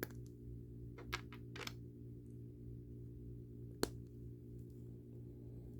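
Light plastic clicks of an action figure's hands being pulled off and pressed onto its wrist pegs: a few soft clicks in the first two seconds and one sharper click just before four seconds in, over a steady low hum.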